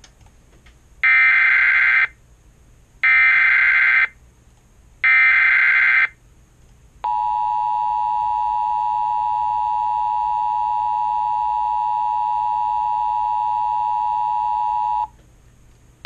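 Emergency Alert System encoder sending a SAME header for a tornado warning as three harsh digital data bursts, each about a second long and a second apart. These are followed by the two-tone EAS attention signal, a steady tone held for about eight seconds that cuts off suddenly.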